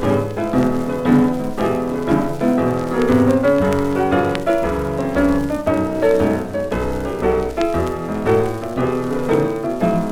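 A 1930s blues 78 rpm record playing an instrumental passage led by piano, without singing.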